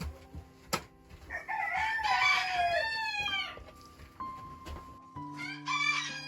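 Rooster crowing: one long crow about a second in that falls away at its end, and another beginning near the end. Soft background music with held tones underneath.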